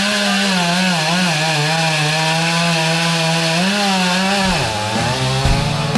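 Chainsaw running at high revs at a steady, slightly wavering pitch, which falls away about four and a half seconds in.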